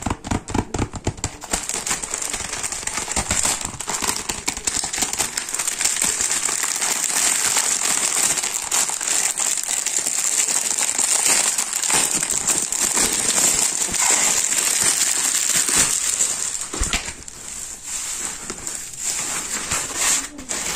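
Cellophane wrapper crinkling and crackling around a dry porous car-wash sponge as it is handled and pulled out of the packaging. The crackle thins out near the end, when fingers rub the bare dry sponge.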